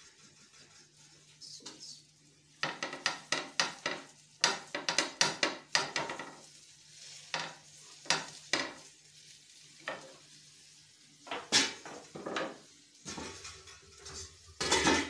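Spatula scraping and clicking against a flat non-stick griddle pan: a quick run of strokes a few seconds in, then scattered single strikes. Near the end comes a heavier clatter as the pan is shifted across the gas stove's grate.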